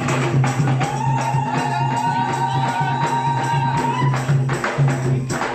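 Bodu beru drumming: several hand drums beaten in a steady rhythm. About a second in, a voice holds one long sung note over the drums and breaks off about four seconds in.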